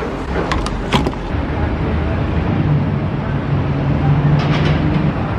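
Gas pump nozzle clicking into a car's filler neck, two sharp clicks in the first second, then the fuel dispenser running with a steady low hum as gasoline flows into the tank.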